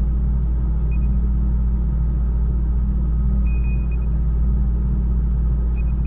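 Sci-fi laboratory ambience sound effect: a steady deep machine hum with scattered short, high electronic beeps and chirps, a cluster of them about three and a half seconds in.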